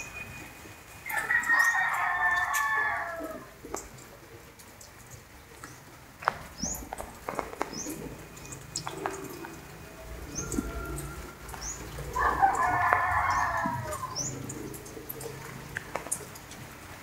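A rooster crows twice, each crow about two seconds long, the second about ten seconds after the first. Between the crows, small birds give short, high chirps.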